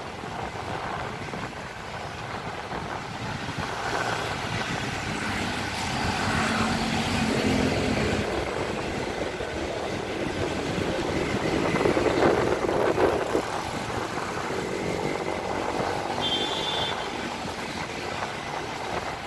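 City street traffic: vehicles passing on the road, with one passing louder a little past the middle.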